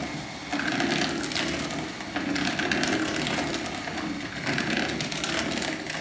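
Electric hand mixer running steadily, its motor humming while the beaters churn batter and rattle against the plastic mixing bowl.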